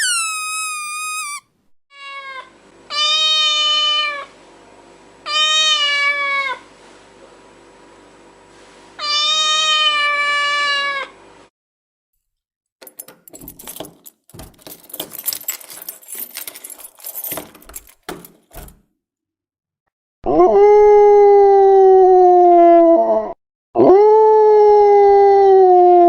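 A run of animal sounds: three cat meows, a few seconds of scattered crackling and clicks, then two long howls that fall slowly in pitch.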